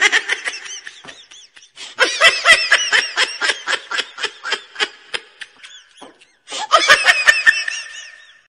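Laughter in three bursts of rapid, evenly spaced ha-ha pulses, about four or five a second, each burst starting and cutting off abruptly.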